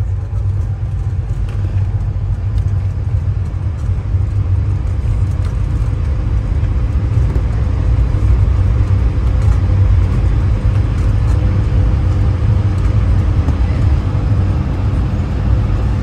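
Airbus A220-300 heard from inside the cabin: a steady low rumble of its Pratt & Whitney PW1500G geared turbofans and airframe, with a faint steady hum, growing somewhat louder a few seconds in and then holding.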